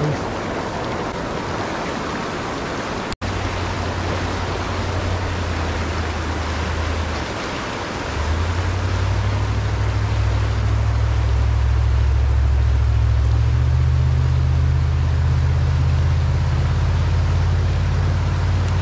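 Small mountain creek rushing steadily, with a deep rumble underneath that grows stronger about eight seconds in. The sound drops out for an instant about three seconds in.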